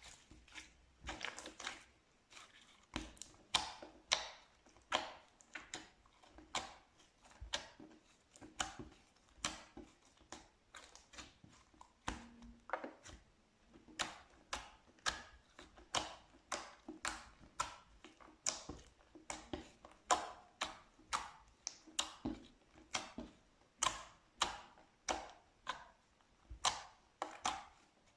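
Slime being pressed and poked by hand, giving short sharp clicking pops as air pockets burst, about one or two a second.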